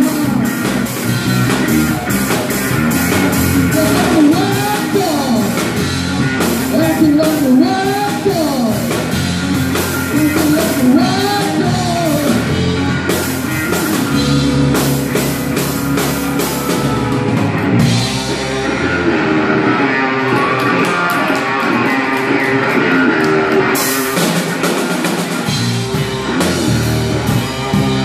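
A live blues-rock trio plays electric guitars and a drum kit, with a man singing over the first part. About 18 seconds in the cymbals drop out for several seconds while the guitar carries on, and the drums return near the end.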